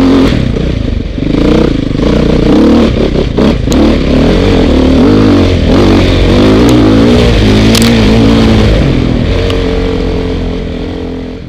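Dirt bike engine heard from the rider's seat, revving up and down as the bike climbs a rough dirt trail, with a few sharp knocks and rattles from the bike over the ground about three to four seconds in. The sound fades away near the end.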